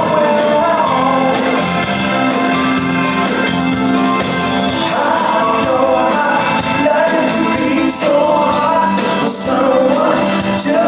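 Blues-rock band playing live, with a bending melodic lead over the full band.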